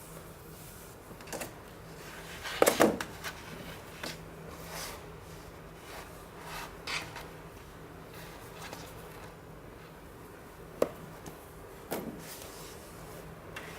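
Handling noises during an unboxing: scattered rustles and light knocks over a faint steady hum, with a louder cluster about three seconds in and two sharp clicks near the end.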